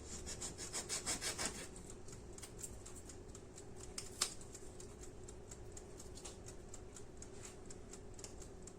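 A knife scraping and cutting through adhesive tape wrapped on a wire, in quick repeated strokes that are louder in the first second and a half, with one sharper click about four seconds in. A faint steady hum runs underneath.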